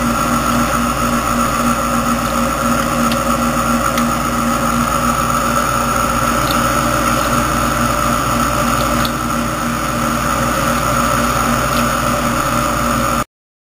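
Whisper 10-30i internal aquarium filters running, a steady hum of the pumps with water churning at their outflows. The sound cuts off suddenly near the end.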